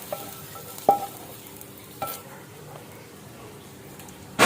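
Steady sizzling in a hot frying pan, with a metal utensil clinking against the pan three times, each hit ringing briefly, and a louder clank near the end.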